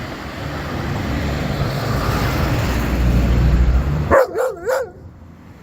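A low rumbling noise builds and then cuts off abruptly about four seconds in. A dog then gives three short yelps whose pitch wavers up and down.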